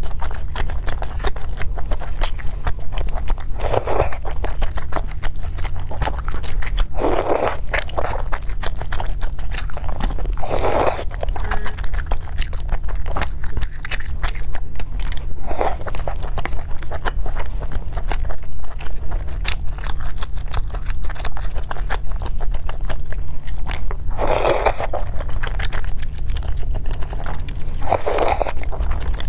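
Close-miked eating: chewing and biting with many wet mouth clicks, and a louder slurp every few seconds as food and broth are sucked in from a plastic tub. A steady low hum runs underneath.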